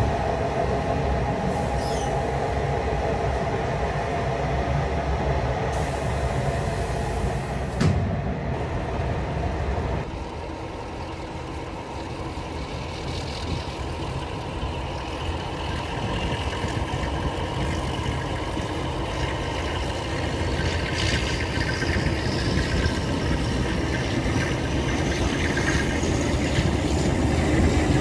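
Passenger train running on the rails behind a TCDD DE 24000 diesel-electric locomotive, heard from a carriage window as a steady rumble of wheels and engine, with a sharp knock about eight seconds in. Over the last several seconds a high whine rises steadily in pitch as the locomotive picks up speed.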